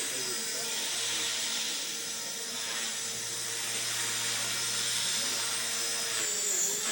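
Align T-Rex 450 electric RC helicopter in flight: a steady high whine from its motor and gears over the hiss of the rotor blades, dipping briefly in pitch near the end.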